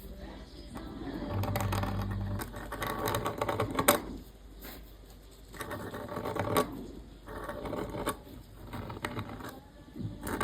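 Calligraphy pen nib scratching across paper in bursts of strokes, with soft paper rustling between them and a sharp tap about four seconds in.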